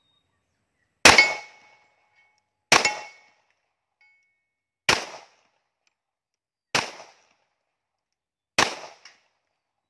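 Five pistol shots, about two seconds apart, each a sharp crack that dies away quickly. After the first two shots a steel target plate rings briefly with a clear tone: those shots are hits on the plate.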